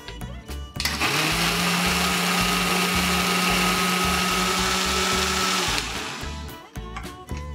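Philips mixer grinder's motor switched on about a second in, grinding grated coconut and water in its steel jar at a steady pitch for about five seconds, then winding down. Background music can be heard before and after it.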